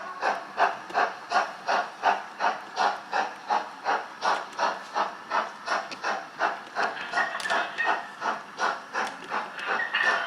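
A model steam locomotive's digital sound decoder playing the exhaust beat of an LMS Black 5 steam engine through the model's small speaker. The chuffs are steady and even at about three a second, and a hiss comes in near the end.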